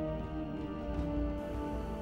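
Background soundtrack music: long held notes over a steady low rumble.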